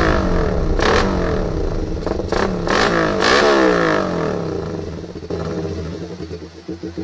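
Suzuki Raider R150 motorcycle engine being revved: its pitch climbs and falls several times, then it drops back toward a pulsing idle near the end.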